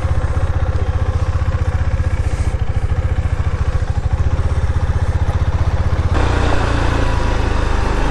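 A motor vehicle's engine running close by, its firing pulses even and steady; about six seconds in the sound changes abruptly to a rougher rushing noise over the engine.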